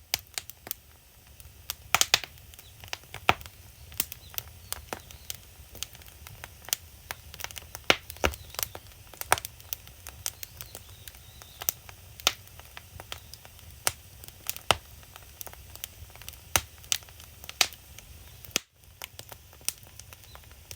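Firewood burning in a traditional agungi fire hole: irregular sharp pops and crackles over a low, steady rumble of the fire.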